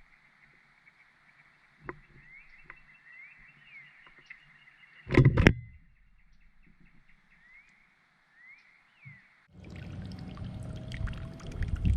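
A bird moving on the feeder right by the camera's microphone: a sharp double knock about five seconds in, then steady scraping and tapping from near the end. Faint high bird chirps sound far off behind it.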